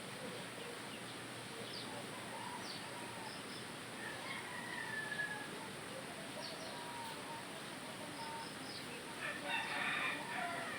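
A rooster crowing, loudest in one call near the end, with scattered short bird chirps.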